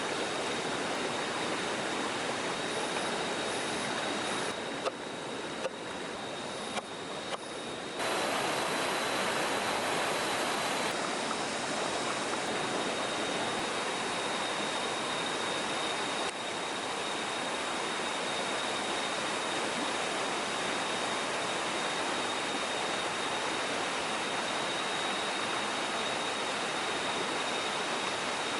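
Rushing stream water, a steady even wash of noise that jumps up in level about eight seconds in. A thin, steady high tone runs above it.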